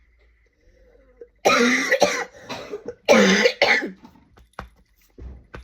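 Two loud coughs about a second and a half apart, from a person with a cold and an ongoing cough.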